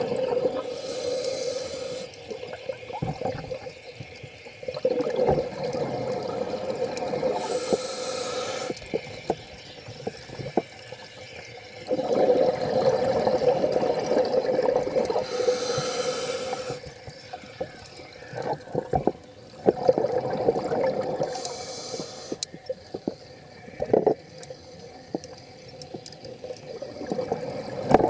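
Scuba diver breathing through a regulator: four short hissing inhalations, about seven seconds apart, alternate with longer rumbling rushes of exhaled bubbles.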